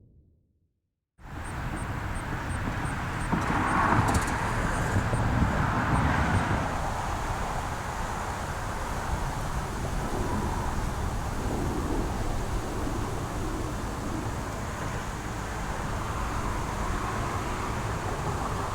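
Steady outdoor background noise with a low rumble, starting about a second in after silence, with faint high ticking for the first few seconds.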